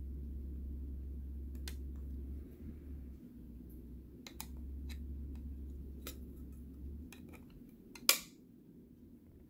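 Scattered small clicks and taps of trading cards being handled, the loudest a sharp click about eight seconds in. A steady low hum runs underneath, breaking off briefly a couple of times and stopping about seven seconds in.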